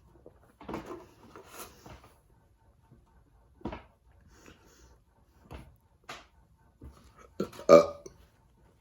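Close-up eating noises from a person eating a chile verde burrito: a scattering of short mouth and handling sounds, the loudest about three quarters of a second before the end.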